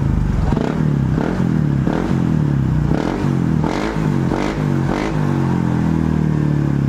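Honda PCX scooter's single-cylinder four-stroke engine through a Bomex aftermarket exhaust, revved in a quick series of short throttle blips, then settling to a steady idle near the end.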